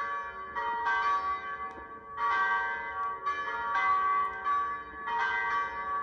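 Church tower bells ringing a peal: several bells of different pitches strike in an uneven sequence, a new stroke every half second to a second, each ringing on and overlapping the next.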